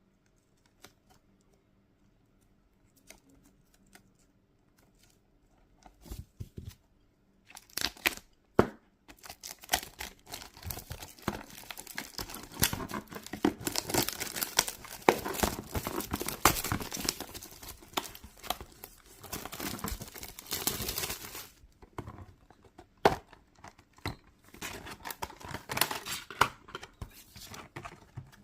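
Packaging being torn open and crinkled by hand. A few seconds of near quiet give way to scattered crackles, then a long stretch of continuous tearing and crinkling, then occasional crinkles near the end.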